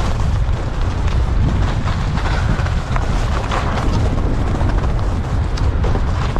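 Skis sliding over groomed snow: a steady low rumble with a scraping hiss that swells and fades several times as the skier turns.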